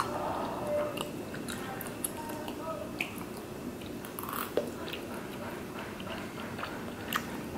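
Chewing of chewy rice cakes in spicy sauce, with wet mouth sounds. Scattered light clicks from metal chopsticks and a spoon against a metal pan, a few of them sharper.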